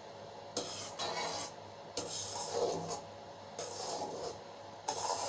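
Spatula scraping and stirring around a metal pan as a spice paste fries in bubbling mustard oil, in about four rasping strokes roughly a second apart, over the faint sizzle of the oil.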